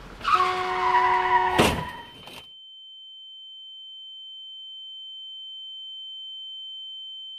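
Sound effect of a car screeching as it brakes hard, ending in a loud crash about a second and a half in: the car striking a pedestrian. After the crash a single steady high-pitched sine tone rings on.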